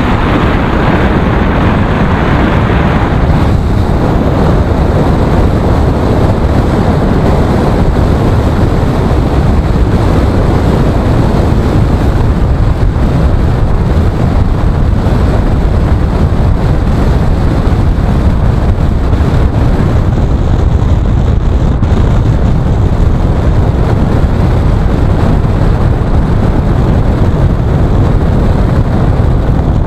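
Steady road noise inside a moving car's cabin: engine and tyres running on a wet road, loud and even, with the most weight in the low end.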